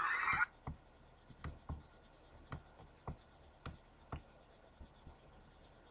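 Faint, sharp clicks or taps at irregular intervals, roughly two a second, after a hissy sound cuts off about half a second in.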